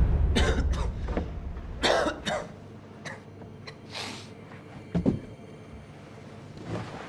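A person coughing repeatedly in short, irregular fits, with a low rumble dying away at the start.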